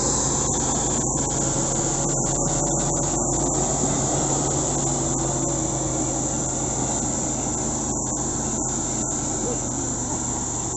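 Evacuation vehicle's engine running steadily under throttle, over a constant high-pitched insect drone.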